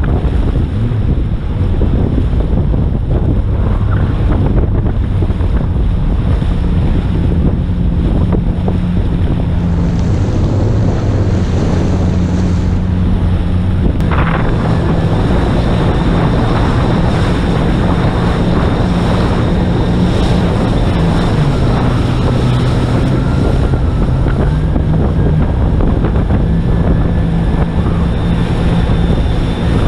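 Jet ski engine running under way, its pitch stepping up and down now and then, with heavy wind buffeting the microphone.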